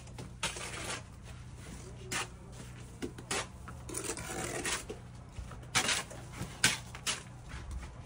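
Steel bricklaying trowels working mortar and concrete blocks: scattered sharp clicks and knocks with short scrapes at irregular intervals.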